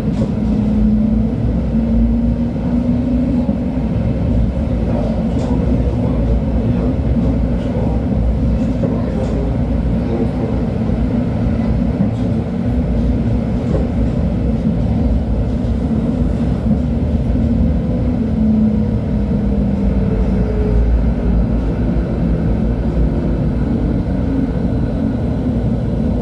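An LHB TW2000 light-rail car running steadily, with a continuous low rumble of wheels on rail and a drive hum that shifts slowly in pitch, sliding down about twenty seconds in.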